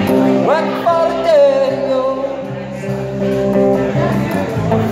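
A man singing into a microphone over his own guitar playing; his voice glides up into a long held note about half a second in.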